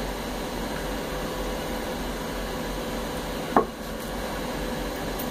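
Steady background noise with a faint low hum, and one short click about two-thirds of the way through.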